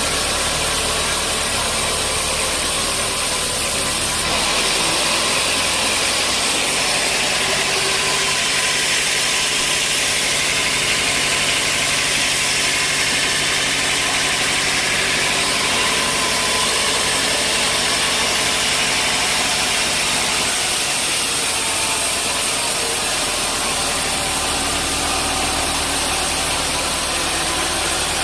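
Sawmill machinery running steadily. From about four seconds in the sound turns hissier and thinner, then settles back to a deeper hum near the end.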